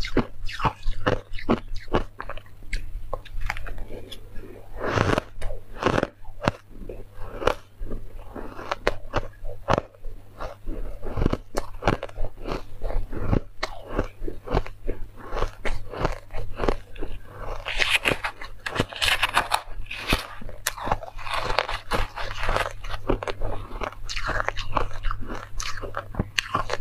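Refrozen white ice being bitten and chewed: a rapid run of crisp crunches, louder and denser for several seconds about two-thirds of the way through, over a steady low hum.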